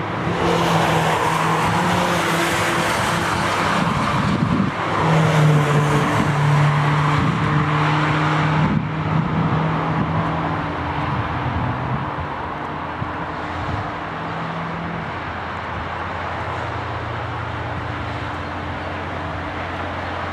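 Cars driven hard along a race circuit, passing one after another, their engines loudest through the first nine seconds or so. After that a quieter, steadier engine drone carries on.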